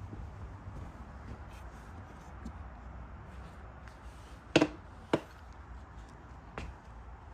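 Seatbelt hardware being handled: two sharp clacks about half a second apart a little past the middle, then a fainter one about a second and a half later, over a low steady hum.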